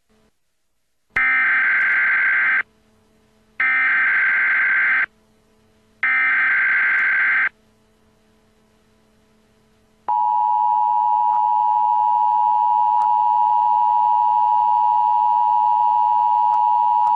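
Emergency Alert System opening: three equal bursts of the SAME digital header tones, each a shrill warbling data squeal about a second and a half long with short gaps between, which carry the machine-readable alert code. About ten seconds in, the steady, loud two-tone EAS attention signal starts, announcing that a spoken warning will follow.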